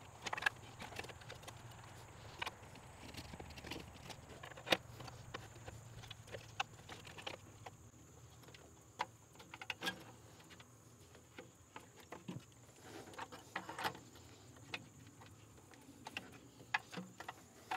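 Composite intake manifold of a GM Vortec V8 being worked out of the engine bay: scattered light knocks, clicks and rattles as it shifts against the hoses and wiring around it.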